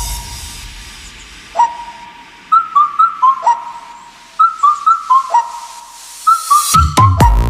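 Electronic background music in a sparse break: a whistle-like lead plays short notes, some of them sliding sharply down in pitch. Near the end the drums and bass come back in.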